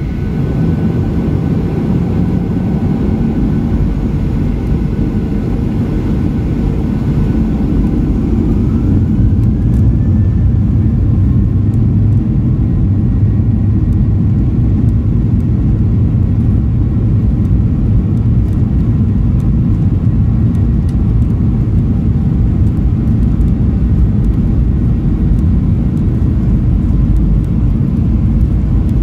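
Boeing 737-800's CFM56 engines heard inside the cabin over the wing. They run at low power for the first few seconds, then spool up with a rising whine about eight to ten seconds in. They then hold at takeoff thrust with a steady, loud low rumble as the aircraft accelerates down the runway.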